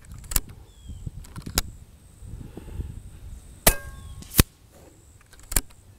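Daystate Pulsar .25 electronic air rifle being fired and cycled at the bench: about five sharp cracks and clicks spaced a second or more apart, the loudest about four and a half seconds in.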